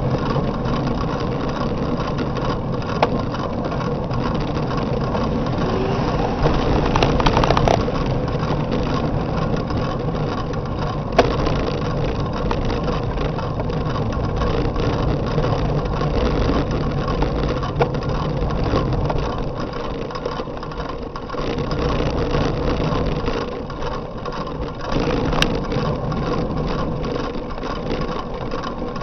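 A motor vehicle's engine running steadily while under way, with wind and road noise.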